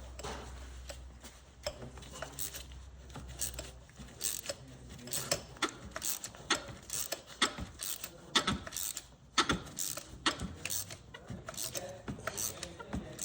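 Hand ratchet clicking in uneven runs, turning a 5/8 spark plug socket on an extension to unscrew the spark plugs, with the clink of metal tools. A low hum sits under the first few seconds.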